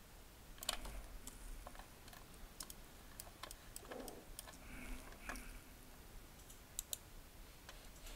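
Faint, irregular clicking of a computer keyboard and mouse, a dozen or so separate clicks.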